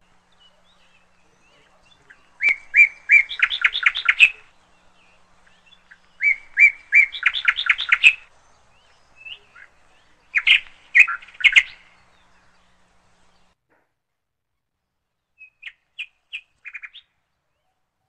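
Common myna calling: three bouts of loud, rapid repeated notes, each about two seconds long and a few seconds apart, then a few faint short calls near the end.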